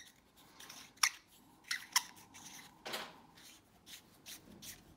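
Back cap being threaded by hand onto a .22 suppressor tube: soft metal-on-metal handling with a few sharp clicks, the loudest about a second in and around two and three seconds.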